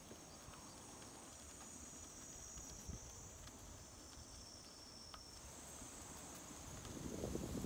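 Insects trilling steadily on one high, continuous pitch, with a second, slightly lower trill joining for about two seconds in the middle. Low wind rumble swells near the end.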